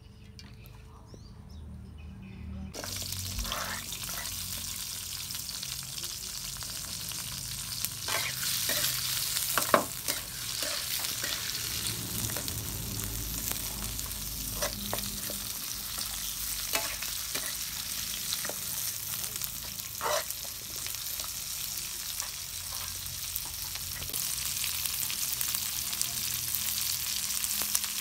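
Aromatics (lemongrass, galangal, onion and chilli) frying in hot oil in a steel wok: a sizzle that starts suddenly about three seconds in and keeps going, growing louder near the end. A metal spatula scrapes and clinks against the wok as they are stirred, the sharpest clink about ten seconds in.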